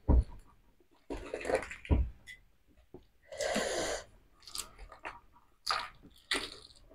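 Scattered short crackles and wet smacks of eating: boiled half-incubated chicken eggs being peeled by hand and chewed.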